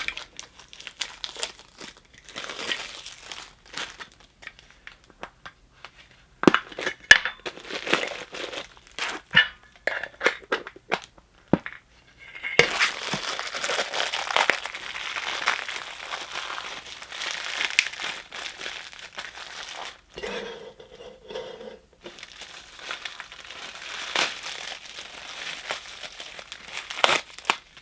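Plastic wrapping crinkling and tearing as a Funko Soda collectible can is unwrapped and opened by hand. It comes in irregular bursts at first and grows more continuous about halfway through.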